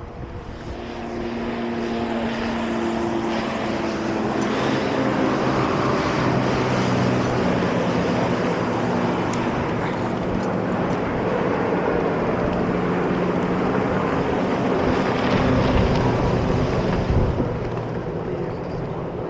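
Boat's outboard motor running at speed with wind and water rushing past. It builds up over the first couple of seconds, holds steady, and eases off a little near the end.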